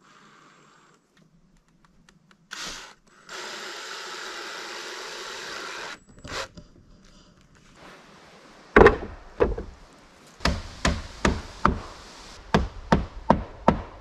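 A hammer strikes repeatedly while corrugated roofing sheets are fixed to an A-frame's timber roof: about ten sharp knocks, irregular at first and then about three a second. They are preceded by a steady whir of a few seconds.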